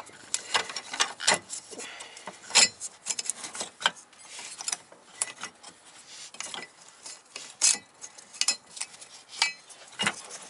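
Irregular clicks, taps and light scrapes of hands fitting a metal fuel filter and its fuel lines into the mounting bracket under a car.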